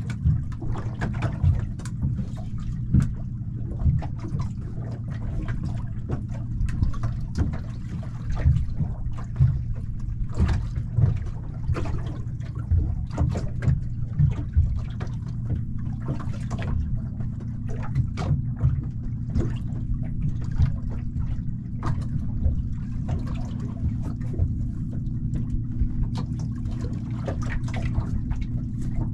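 Water slapping and lapping against the hull of a small fishing boat in irregular splashes, over a steady low hum.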